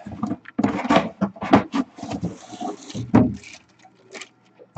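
Cardboard box being handled: a quick run of knocks, scrapes and rustles as the box and its flap are moved and set down, dying away to a few light ticks after about three seconds.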